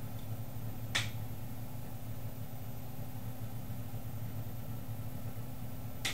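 Steady low hum of an electric motor wheel spinning, with two sharp clicks about five seconds apart, one about a second in and one at the end: the switch that pulses the motor being flipped on and off by hand.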